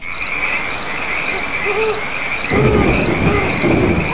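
Night chorus of crickets: a steady shrill trill with a sharper chirp repeating just under twice a second. A low rustling noise joins about two and a half seconds in.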